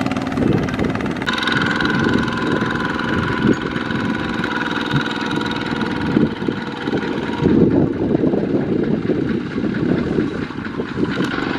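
Single-cylinder Kubota ZT155 diesel engine of a two-wheel walking tractor running under load, hauling a trailer of rice sacks. The engine sound changes abruptly about a second in.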